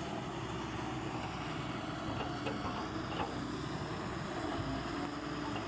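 Heavy machine's diesel engine running steadily, typical of an excavator at work, with a few faint clicks.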